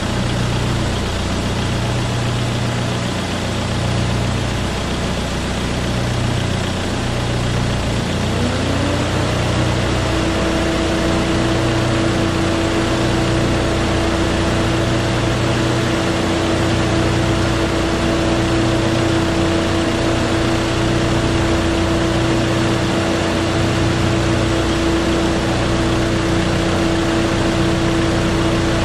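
Level-crossing warning sounder (AŽD ZV02 electronic bell) sounding in a steady, even pulsing rhythm while the barriers are down, over the engines of cars idling at the barriers. A steady hum runs beneath it; it fades out at the start and comes back rising in pitch about eight to ten seconds in.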